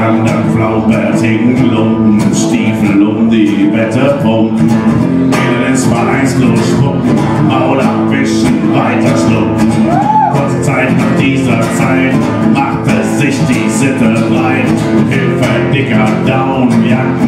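Acoustic guitar strummed live in a steady, even rhythm.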